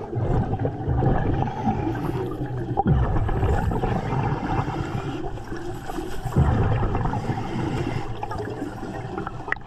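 Underwater gurgling and rushing of a diver's exhaled air bubbles, swelling a few times as he breathes.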